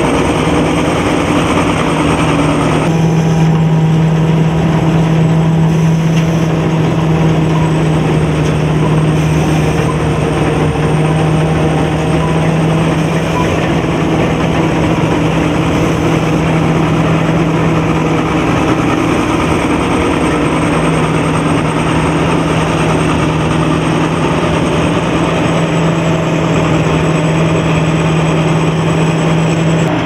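Combine harvester at work in a rice field: its 220 hp turbo diesel engine and machinery run steadily under load with a constant low hum.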